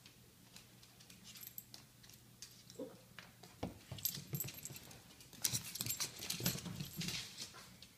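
A Chihuahua and a cat play-wrestling: scuffling, clicks and scrapes of paws and claws with light metallic jingling, sparse at first and busiest from about four seconds in.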